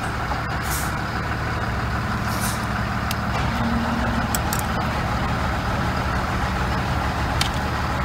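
A steady low hum, with a few faint clicks as a small screwdriver pries the plastic pigtail connector off a 4WD front axle actuator.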